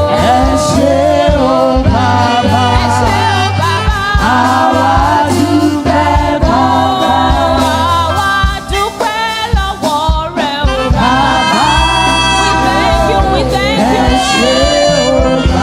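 Church praise team singing a gospel worship song with live band accompaniment: several voices over a steady bass and drums. The bass drops out for a couple of seconds about halfway through.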